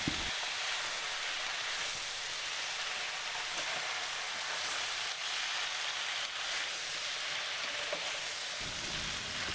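Taro abacus seeds and minced pork stir-frying in hot oil in a pan: a steady sizzle.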